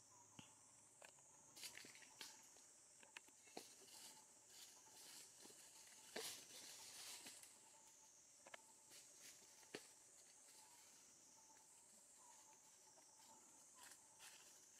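Near silence: faint outdoor ambience with a steady high hiss and scattered soft clicks.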